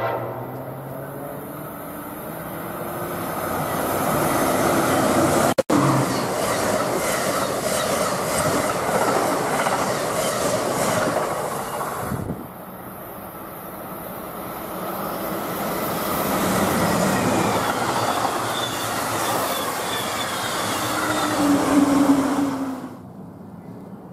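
Electric passenger trains passing on the main line: a loud rush of steel wheels on rail that builds up, with regular wheel clicks over rail joints. It cuts off abruptly about twelve seconds in, and a second train approaches and grows louder, with a low steady tone near its peak, before the sound cuts off just before the end.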